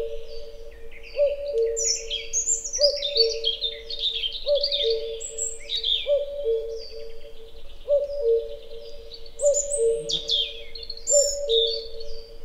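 A common cuckoo repeats its two-note "cuck-oo", higher then lower, about every second and a half. Over it a European robin sings quick, high, shifting phrases.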